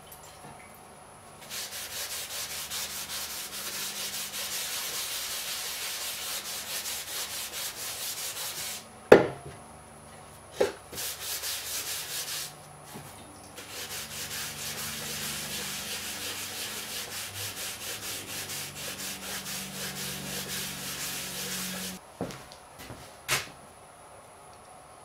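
A cloth rag rubbing quickly back and forth over a wooden radio box, wiping it down with lacquer thinner to strip the old varnish. The scrubbing comes in long stretches, broken by two sharp knocks about nine and ten and a half seconds in and a few lighter knocks near the end.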